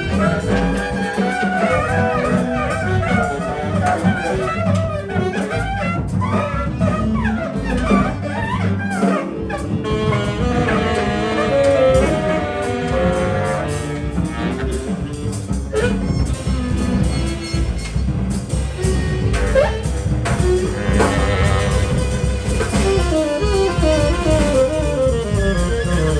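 Large jazz ensemble of saxophones, violin, viola, double basses, drums and piano playing live, many lines sounding at once: saxophones and bowed strings wavering over double bass and drums.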